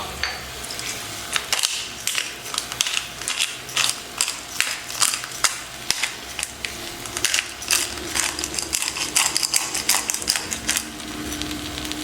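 Pepper grinder cranked over a frying pan, grinding a mix of peppercorns: a long run of rapid, irregular ratcheting clicks over the faint sizzle of eggplant slices frying in oil.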